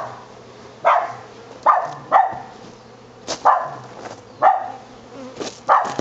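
A dog barking repeatedly, about nine barks, over the steady hum of a clustered honey bee swarm.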